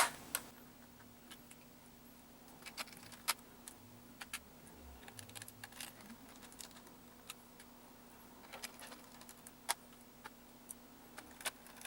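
Scattered light clicks and taps of small screws being handled and driven with a small Phillips screwdriver into a laptop's plastic base, over a faint steady hum.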